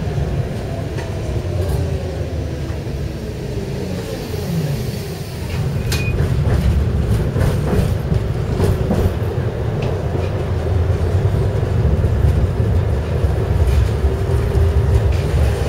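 Prague tram running on its rails, heard from inside the car: a steady low rumble. A whine glides in pitch during the first few seconds, the running gets louder about five seconds in, and there are scattered short clicks.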